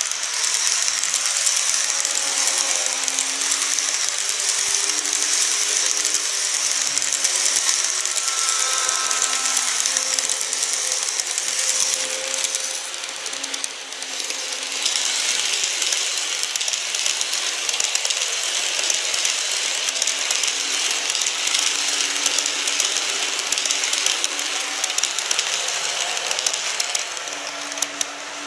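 Model trains running on a layout: a steady rattle of small motors, gears and wheels on track, with a faint motor whine that shifts in pitch and a brief dip about halfway through.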